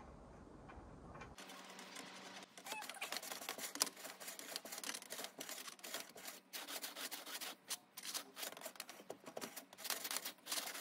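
Chimney-sweep brush on a rod being pushed up and down inside a stainless steel chimney pipe: a fast, irregular run of scraping and clattering against the metal flue, starting about a second in.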